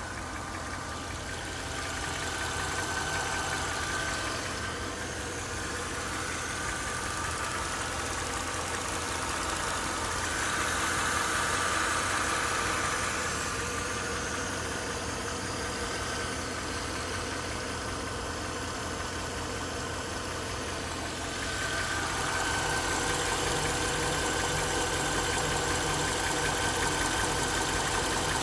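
Mercedes-Benz GL 500's M273 V8 engine idling with a knock, getting somewhat louder in stretches.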